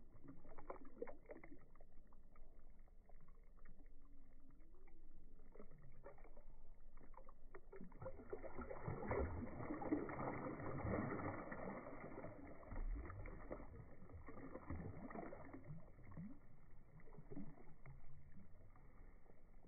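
A released bass splashing and thrashing in shallow water, with a louder flurry of splashes in the middle before it settles. The sound is faint and muffled.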